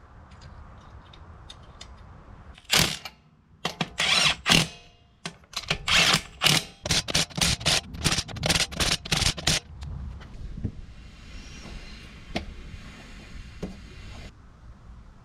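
Impact wrench run in about a dozen short, loud bursts over some seven seconds, tightening the lug nuts on a wheel.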